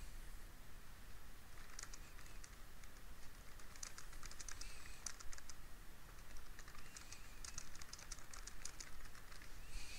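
Typing on a computer keyboard: rapid key clicks in three bursts, with short pauses between them.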